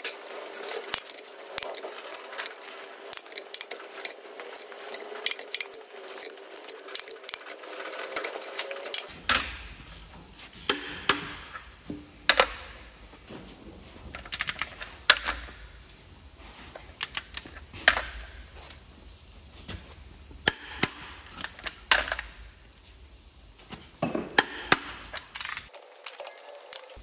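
Sharp metallic clicks and clinks of a socket and ratcheting torque wrench on an engine block's main bearing cap bolts as they are run down and tightened to 300 N·m. The clicking is rapid and dense for the first several seconds, then breaks into separate loud clicks.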